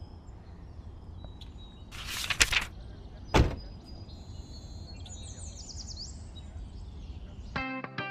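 Outdoor ambience with a steady low rumble and birds chirping, broken by a loud whoosh and, about a second later, a sharp heavy thump. Music with plucked notes begins near the end.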